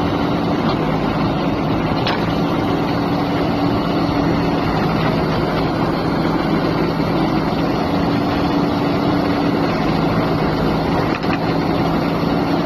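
Diesel engine of an excavator running steadily under work, a constant low engine hum.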